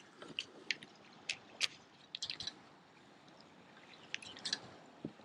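A scatter of faint, sharp clicks and ticks, irregularly spaced, most of them in the first half and a small cluster about four seconds in.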